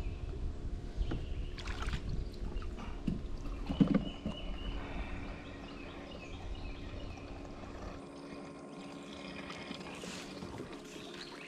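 Knocks and gear handling on a fishing kayak, a few sharp clicks among them, over a steady low hum and a low rumble that cuts off about eight seconds in.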